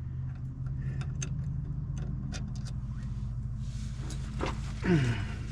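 A steady low mechanical hum with scattered light metallic clicks and taps from hardware being worked into a horn-mounting bracket. A short falling whine comes near the end.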